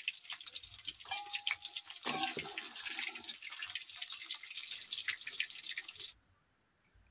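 Soya chunks sizzling and crackling in hot oil in a metal kadai, with a slotted metal spoon scraping and clinking against the pan as the chunks are stirred and lifted out. The sizzle cuts off suddenly about six seconds in.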